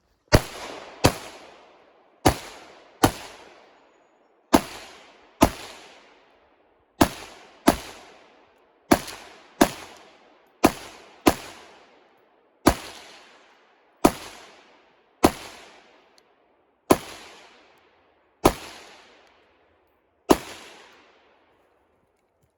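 Eighteen gunshots from a long gun, each with a long echoing tail. The first few come in quick pairs about 0.7 s apart, and the later ones come singly every one to two seconds.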